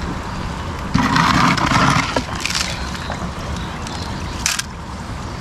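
Gravel scraping and crunching, likely a gold-panning pan being scooped or shifted in the gravel of the panning trough, loudest for about a second starting a second in, followed by a few lighter knocks. Steady low rumble of traffic from a nearby road underneath.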